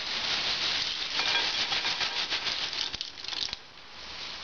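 Roasted cashew nuts poured from a plastic bulk bag into a ceramic bowl of dried fruit and almonds: a dense rattle of nuts tumbling onto nuts, with the bag rustling. The pour tails off about three and a half seconds in.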